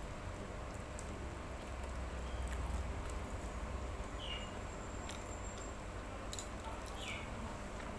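Close-miked chewing of spicy instant noodles, with soft wet mouth clicks and one sharper click about six seconds in.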